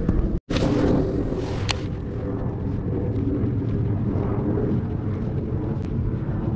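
Steady low rumble of wind buffeting the microphone, cutting out for a split second about half a second in, with a sharp click a little over a second later.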